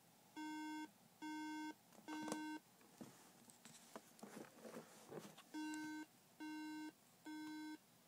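MacBook Pro sounding a three-beep alarm: three short, identical electronic beeps, a pause of about three seconds with some handling rustle, then three more. Three repeating beeps from a Mac that will not start is Apple's startup code for a RAM fault.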